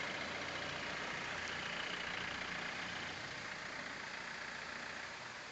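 Water from a small roadside waterfall gushing down, a steady rushing noise, with a vehicle engine idling low underneath that fades about halfway through.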